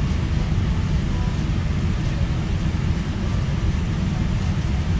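Steady low rumble of cabin noise inside a Boeing 787-9 airliner.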